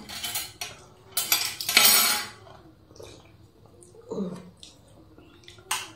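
Metal spoon scraping and clinking in a stainless steel bowl while dal is spooned out: several strokes in the first two seconds, then a single sharp clink near the end.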